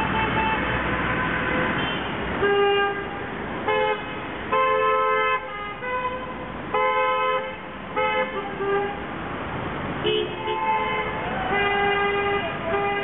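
Car horns of passing traffic honking one after another, short and long toots at several different pitches, some overlapping, over steady street traffic noise. The honking starts a couple of seconds in. Drivers are honking in answer to a roadside protest banner that asks them to honk.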